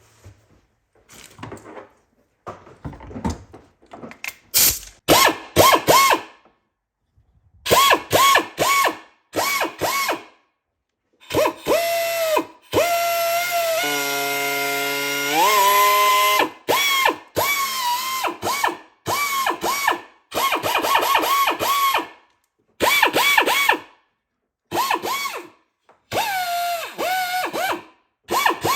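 3M pneumatic file belt sander with a 60-grit belt, run in many short whining bursts as the trigger is pulsed, with one longer run of a few seconds in the middle whose pitch rises near its end.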